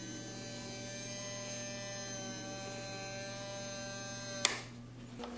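Small 6-volt geared motor (63 rpm spur gear motor) turning the corkscrew marble lift, a steady even whine of its gears. It stops with a click of the on-off switch about four and a half seconds in.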